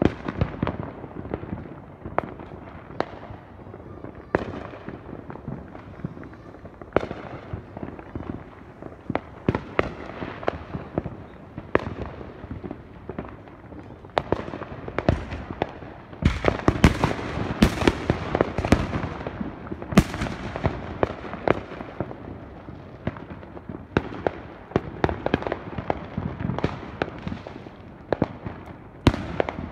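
Fireworks going off: sharp bangs and pops at irregular intervals, coming thickest for several seconds about halfway through.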